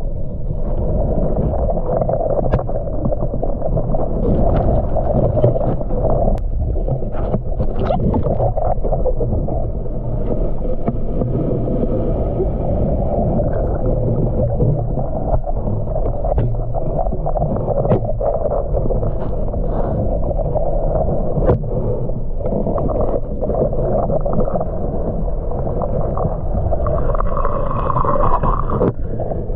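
Muffled underwater noise heard through a submerged camera: a steady low rumble of moving water with scattered faint clicks.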